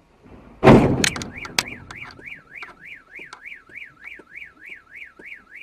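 A box van bumps into a parked car with a loud thud and a few knocks, setting off a car alarm: a siren that sweeps up and down about three times a second, starting about a second after the impact.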